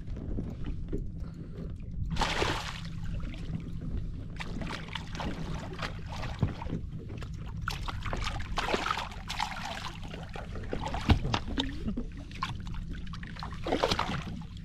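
A hooked bass splashing at the water's surface beside a boat as it is landed by hand, with the biggest bursts of splashing about two seconds in and near the end, over a steady low rumble.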